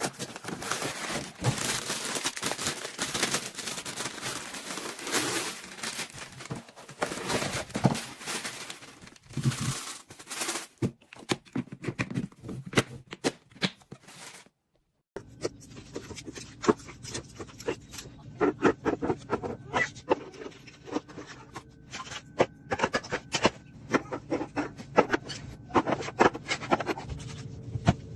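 Food packaging and containers being handled: rustling, scraping and frequent light taps and clicks, broken by a brief silent cut about halfway through.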